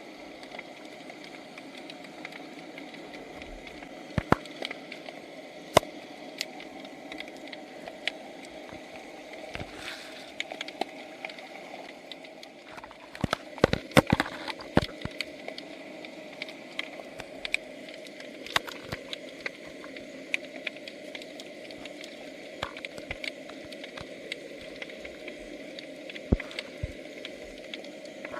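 Underwater recording: a steady low wash of water noise, dotted with scattered sharp clicks and knocks, with a burst of louder clicks about halfway through.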